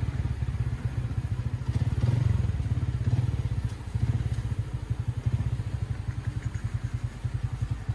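Motorcycle engine running at low revs, its firing heard as a rapid, regular low pulsing.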